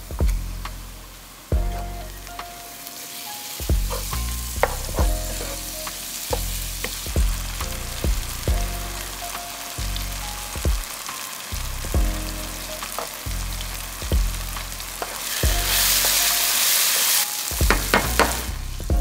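Chicken and curry potato filling frying with a steady sizzle in a nonstick pan, stirred with a wooden spatula that clicks and scrapes against the pan. The sizzle flares much louder for a couple of seconds near the end. A low music beat pulses underneath.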